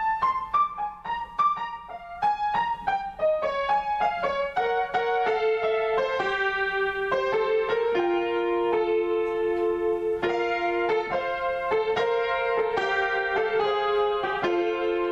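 Solo piano improvisation. Quick single notes step downward over the first few seconds, then chords are struck repeatedly over held middle notes.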